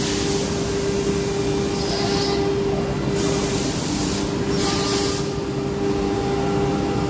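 CNC router spindle running with a steady whine while its cutter mills a polycarbonate sheet, over a constant rushing hiss. Twice the hiss swells higher for about a second.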